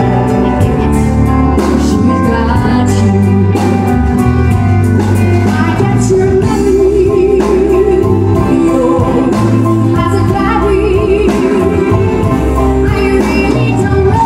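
A woman singing live into a microphone with a band accompanying her. She holds long notes with vibrato over a steady beat.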